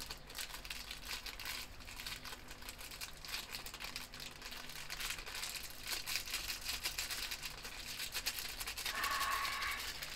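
Small green plastic sachet, a Milo packet, crinkling and tearing as it is worked open by hand. It makes a dense run of fine crackles, with a louder rustle near the end.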